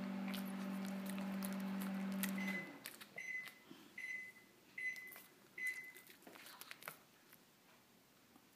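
Microwave oven humming, then stopping abruptly a few seconds in and beeping about five times in a row at an even pace to signal it has finished. A few faint clicks sound now and then.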